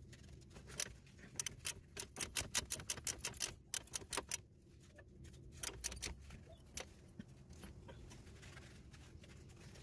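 Ratchet wrench clicking in quick runs as it is swung back and forth to tighten a brake caliper carrier bolt. The clicking stops about seven seconds in.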